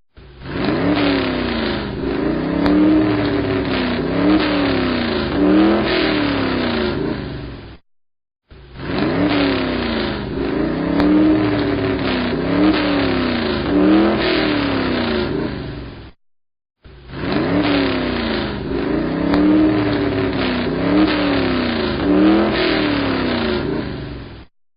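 Racing car engine revving, its pitch climbing and falling back again and again. The same run of about eight seconds plays three times, with short breaks of silence between.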